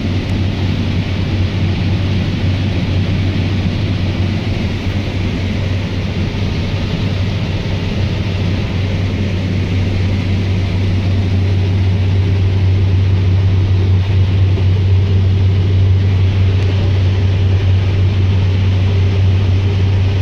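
Heavy diesel harvest machinery running steadily: a strong low drone with a hiss above it, getting a little louder in the second half.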